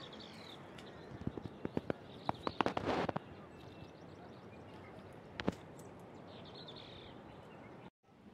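Birds chirping twice over a steady outdoor hiss, with a quick run of sharp clicks and knocks about one to three seconds in and one more a couple of seconds later. The sound drops out for a moment near the end.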